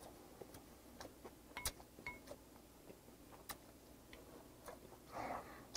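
Quiet eating sounds while chewing: small mouth clicks and a couple of light clinks of metal chopsticks or spoon against a ceramic bowl, about a second and a half and two seconds in, with a short breath near the end.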